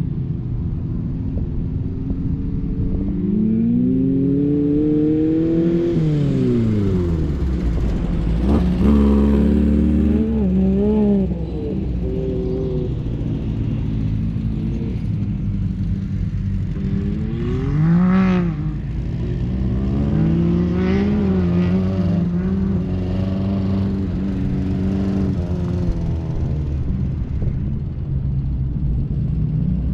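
Volkswagen-powered sand rail's engine running under a novice driver's foot, its revs climbing and falling several times, with a sharp rev and drop about eighteen seconds in.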